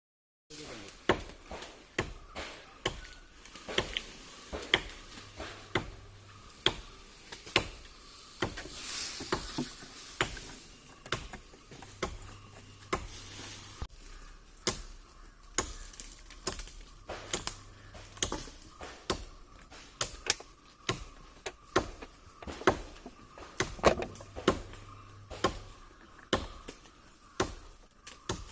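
Sharp knocks repeating roughly once a second, like strikes on wood, over a faint steady background hum.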